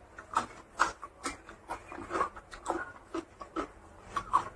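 A person chewing food close to the microphone: a quick irregular run of wet mouth sounds, about two a second.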